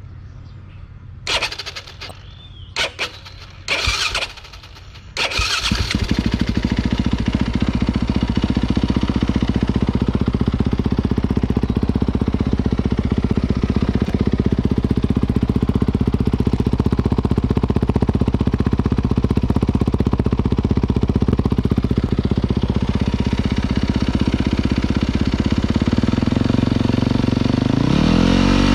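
2018 Yamaha YZ250FX four-stroke single-cylinder dirt bike engine, breathing through a newly fitted Akrapovic slip-on exhaust. A few short sounds come first, then the engine starts about five seconds in and idles steadily. The revs rise near the end.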